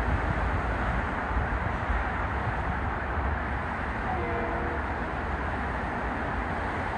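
Electric commuter train approaching in the distance: a steady rumbling hiss, with a short, faint horn blast of several tones at once a little over four seconds in.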